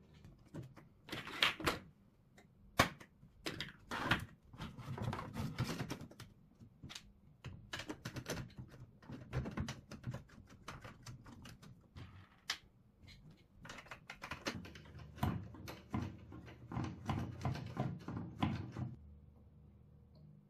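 Hard 3D-printed plastic chassis parts clicking and knocking against each other as they are handled and fitted together by hand, a run of irregular sharp clicks.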